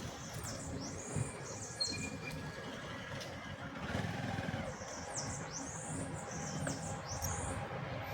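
Small birds calling in two bouts of quick, high chirps that sweep downward, over a steady low rumble.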